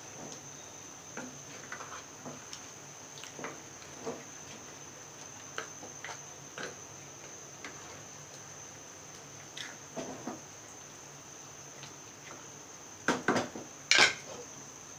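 Plastic spatula stirring chunks of beef in a metal pan, giving soft, scattered knocks and scrapes against the pan. A few louder clatters come near the end.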